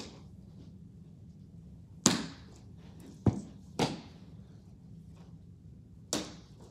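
A baseball knocking against a wall and floor and smacking into a 44 Pro baseball glove during ground-ball fielding practice: four sharp knocks, at about two, three and a half, four and six seconds.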